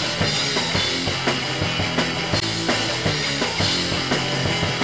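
Rock music with a drum kit keeping a steady beat, playing under the end credits.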